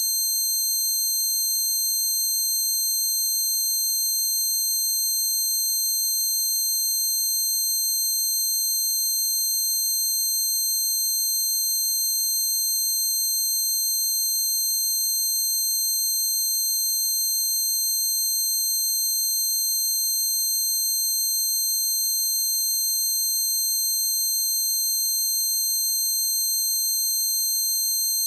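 Synthesized recreation of noise-induced tinnitus: several steady high-pitched tones ringing together without a break, a few of them with a slight fast flutter.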